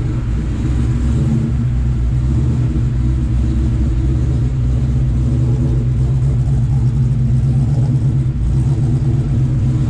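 Supercharged 4.6-litre V8 of a 2003 Mustang Mach 1 running at a steady cruise under way, with road rumble. The newly fitted 6R80 automatic is running cool and well.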